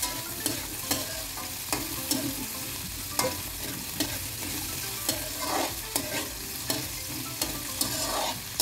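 Diced potatoes and carrots sizzling in hot oil in a wok as they are stir-fried, with a steady hiss and a spatula scraping and clicking against the pan about once or twice a second.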